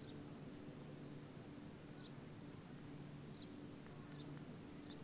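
Faint outdoor ambience: sparse short high chirps from small animals over a steady low hum.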